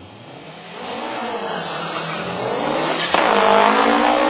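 Engine accelerating hard at full throttle, its pitch climbing for about two seconds. A sharp crack comes about three seconds in, then the pitch drops and climbs again.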